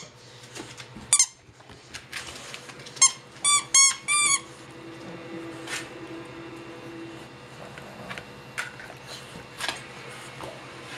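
Squeaky plush dog toy squeaked by a bulldog's bite: one short squeak about a second in, then four squeaks in quick succession a little after three seconds in, the last ones longer. Faint scuffling follows.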